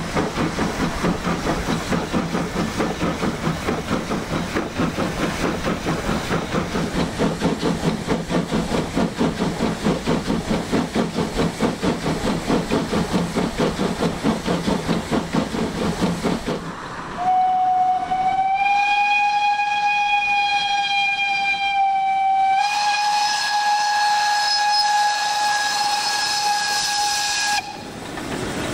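Prussian T13 steam tank locomotive chuffing in a quick, even rhythm of exhaust beats with steam hissing, then sounding its steam whistle in two long blasts, the first rising slightly in pitch as it opens and the second following almost at once.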